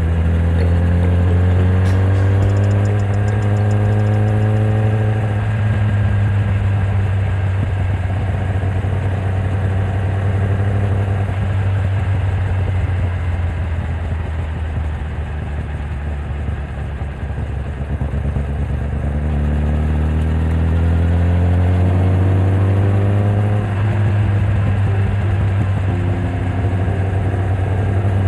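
Kawasaki ZX-10R's inline four-cylinder engine pulling hard with rising revs, then easing off for a long stretch under a steady rush of wind and road noise. About three-quarters of the way through it picks up and revs rise again.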